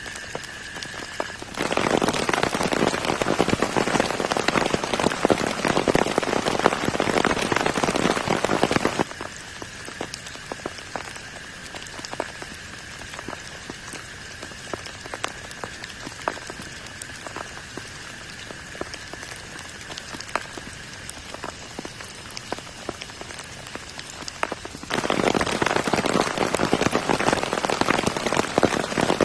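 Heavy tropical rain pouring down, easing abruptly after about nine seconds to lighter patter and separate drips with a steady high-pitched drone in the background, then coming back heavy near the end.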